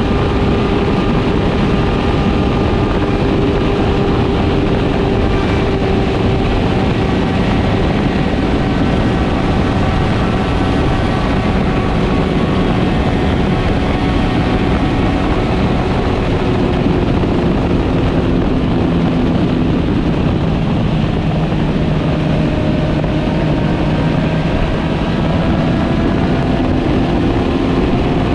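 Motorcycle engine at a steady highway cruise, its note drifting only slightly in pitch, under heavy wind and road rumble.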